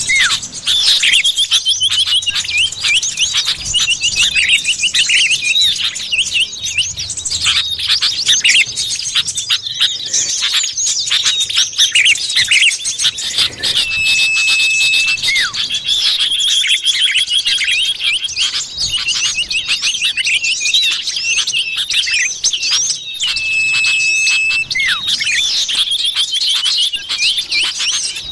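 Common iora (cipoh) lure calls: a dense stream of rapid chirps and trills, with a long, steady, even-pitched whistle twice, about halfway through and again near the end.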